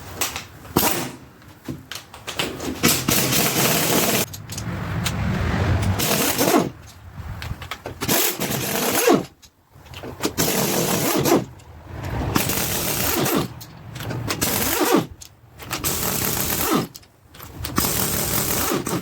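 Cordless impact wrench run in about a dozen bursts of one to two seconds each, with short pauses between, loosening the rocker arm nuts on a small block Chevy 350's cylinder heads.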